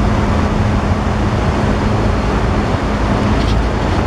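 Narrow-gauge tourist train running along the track: a steady rumbling noise with a low steady hum that fades about three seconds in.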